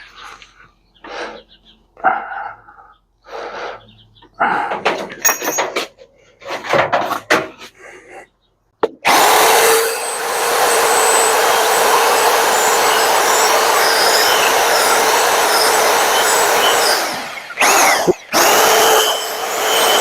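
Several seconds of scattered handling knocks, then a power drill running steadily for about eight seconds as it drills small holes. It stops briefly and starts again near the end.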